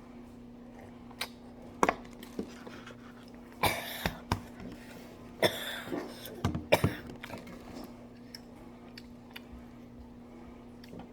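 A person coughing and clearing her throat while eating spicy tteokbokki soup, in several short bursts from about three and a half to seven seconds in. A few sharp clicks come before and among them.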